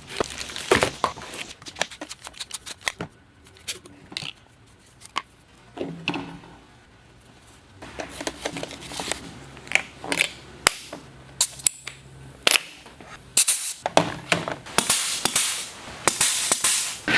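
Irregular sharp clicks and knocks from tools and metal being handled, quieter for a few seconds near the middle and coming thick and fast near the end, with a faint low hum for a few seconds in the middle.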